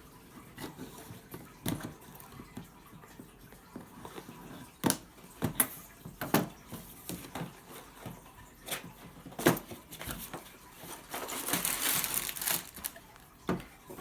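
A cardboard LEGO set box being opened by hand: scattered taps and knocks of the cardboard being handled, then a rustling, tearing stretch about eleven seconds in.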